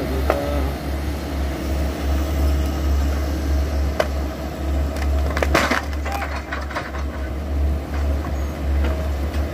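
Hydraulic excavators running under load with a steady low rumble as a bogged Sany SY135F is dragged out of deep mud, with sharp cracks and splintering about four seconds in and again around five and a half seconds in.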